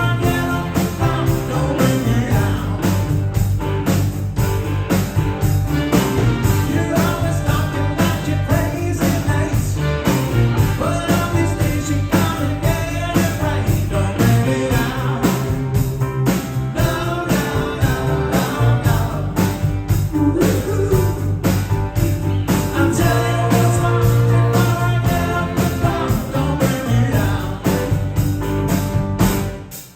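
Rock band playing with a lead singer: a steady drum beat under guitars, keyboards and vocals. The sound dips out sharply for a moment near the end.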